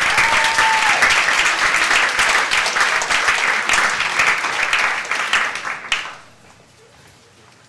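Audience applauding a comedian's introduction: dense clapping that dies away about six seconds in.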